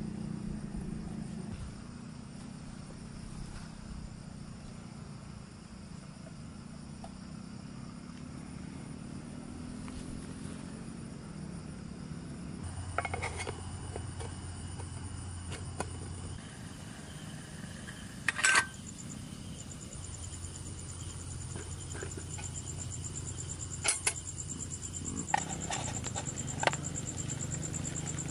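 Night-time ambience of insects and frogs with a steady high insect tone, broken by a few sharp metallic clinks of aluminium mess tins and cookware being handled, the loudest one about two-thirds of the way through.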